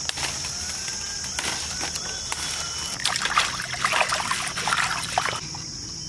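Hands sloshing and splashing water while washing mango leaves in a basin, busiest from about three seconds in to just past five. Crickets keep up a steady high-pitched chirring.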